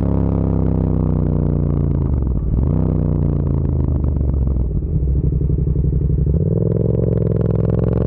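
Yamaha MT-07's 689 cc parallel-twin engine and exhaust running steadily. The engine note dips and picks back up about two and a half seconds in, then slowly rises in pitch near the end.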